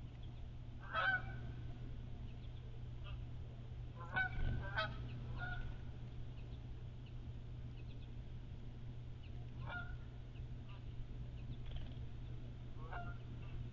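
Bird calls: about six short, honking calls spaced a few seconds apart, three of them bunched together about four to five seconds in, over a steady low hum.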